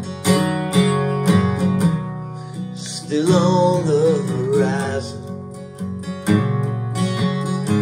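A recorded song playing: acoustic guitar strummed in a steady rhythm, with a short sung phrase about three seconds in.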